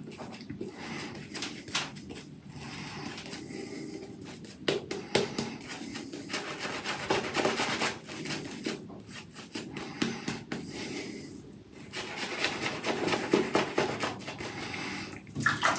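Two-band Manchurian badger shaving brush scrubbing lather onto a three-day-stubbled face: bristly rubbing in irregular swirling strokes, thick with fine crackles of bristles and lather.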